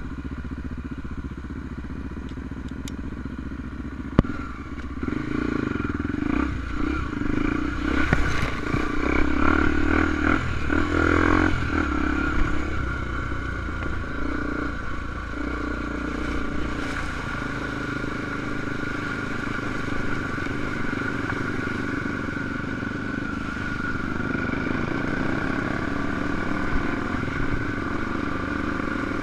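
Honda XR250 Tornado enduro motorcycle's single-cylinder four-stroke engine running, getting louder for several seconds about a fifth of the way in, then settling back to a steady run.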